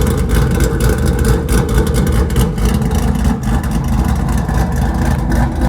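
2018 Mustang GT's 5.0 L Coyote V8 idling with a choppy, loping 'ghost cam' idle, loud through Stainless Power long-tube headers and a Ford Performance by Borla catback exhaust. The sound cuts off abruptly at the very end.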